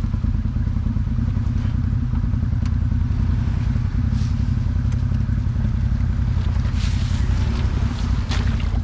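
Off-road vehicle engine running steadily at low speed, a low even rumble with no revving, with a few faint ticks and clatters over it.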